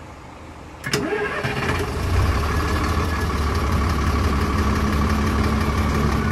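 Diesel bus engine being started: a click and the whine of the starter motor about a second in, then the engine catches and settles into a steady idle.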